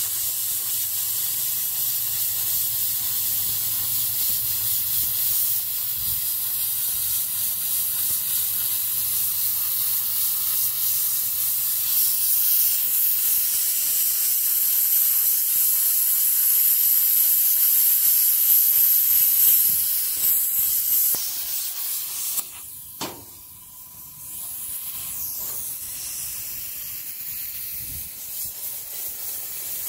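Metal-cutting torch hissing steadily as it cuts a circle out of a steel sheet. The hiss grows louder past the middle, then dies away about two-thirds through, followed by a single sharp click and a fainter hiss.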